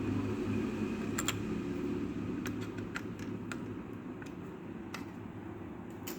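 Scattered light clicks and ticks, about nine in all and unevenly spaced, from small tools working on a laptop motherboard during a processor replacement. A steady low hum runs underneath.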